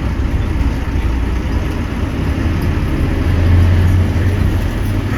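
Low, steady engine and road rumble of a running motor vehicle, swelling briefly a little past the middle.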